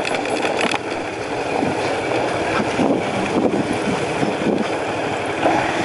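Steady wind rush over the microphone, with road noise, from a Hyosung Comet 250 motorcycle coasting down a steep hill.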